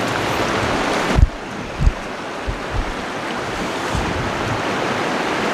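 Fast, shallow river running over rocks: a steady rushing. Wind buffets the microphone in short low thumps, the strongest about a second in.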